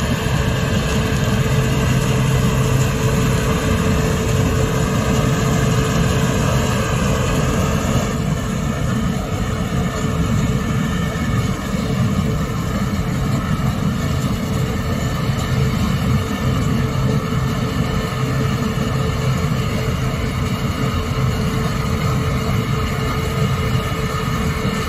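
Combine harvester running steadily as it moves at low speed: a deep diesel engine drone with a thin, steady whine from the machinery over it.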